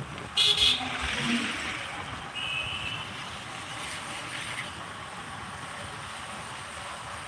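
Steady engine, wind and road noise of a motorcycle or scooter being ridden. There is a short loud burst about half a second in and a brief high tone a little over two seconds in.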